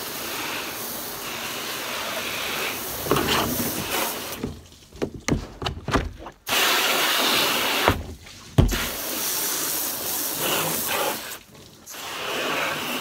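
Garden hose pistol-grip spray nozzle spraying water onto a plastic work table and cutting board, rinsing them off between birds, in several long spells with short breaks. A few short knocks come in the breaks, about five seconds and eight seconds in.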